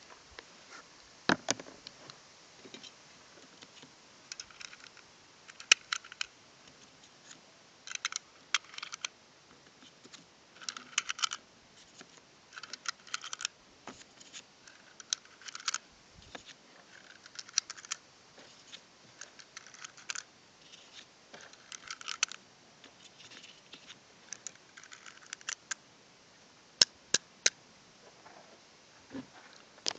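9mm cartridges being pressed one at a time into a 1911 pistol magazine: a short metallic click or small clatter every two seconds or so.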